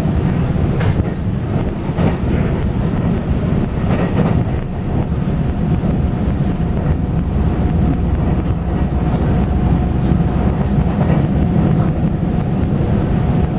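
Train running, heard on board: a steady low rumble with some wind noise and a few light knocks. A steady thin whine joins in about five seconds in.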